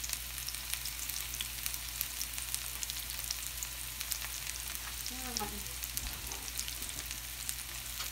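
Mushrooms frying in hot olive oil in a pan: a steady sizzle with constant small crackles and pops as they start to brown.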